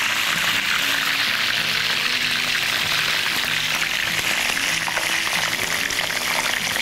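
Pieces of fresh goat's cheese, some coated in crushed toasted corn, deep-frying in hot oil with a steady sizzle and bubbling as the cheese releases its water into the oil.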